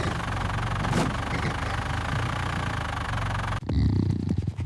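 Vehicle engine idling steadily, a low even hum used as a cartoon sound effect. It cuts off abruptly about three and a half seconds in, and a different, choppier low sound follows.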